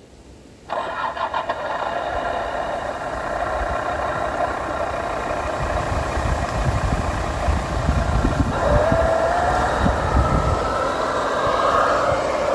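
Simulated engine sound from a Sense ESS-Dual+ sound generator, played through the speaker of an RC scale crawler truck. It cuts in abruptly under a second in and runs steadily, with the revs rising near the end as the truck drives.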